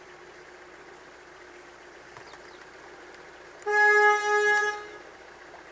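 A narrowboat's horn gives one blast of about a second and a half, a steady single-pitched tone, as a warning while the boat approaches a narrow bridge hole.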